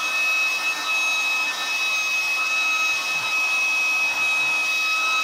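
Electric hot-air blower running steadily as it blows hot air onto gummy bears to melt them, a constant airy rush with a high, steady whine.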